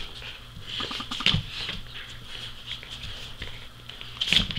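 Livestock guardian dog puppies scuffling over a sock on a wooden floor: claws clicking and paws scrabbling on the boards, with louder knocks about a second in and near the end.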